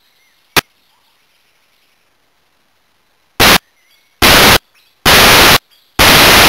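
Harsh bursts of static from the trail camera's audio: one sharp click about half a second in, then four loud, clipped blasts of hiss in the second half, each cutting in and out abruptly, the sign of a recording glitch rather than anything in the scene.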